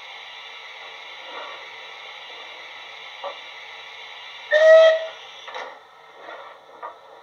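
Model steam locomotive DCC sound of a rebuilt Southern West Country Pacific, played through a megabass speaker in the tender: a steady steam hiss from the standing engine, a short whistle blast about four and a half seconds in, then the hiss cuts off. A few faint clanks come through under the hiss.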